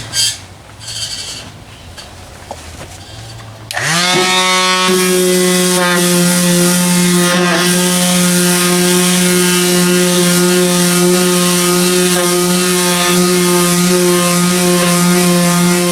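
A few light knocks and rubbing, then about four seconds in a power sander starts up with a quick rising whine and runs at a steady pitch, sanding old paint off a car door.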